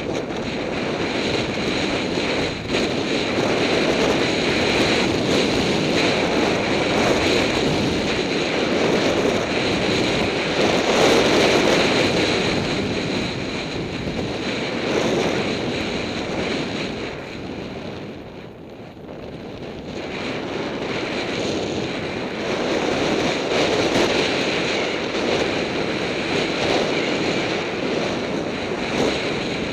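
Skis hissing through deep snow with wind rushing over the microphone. The noise swells and eases with the turns and drops away briefly about two-thirds of the way through.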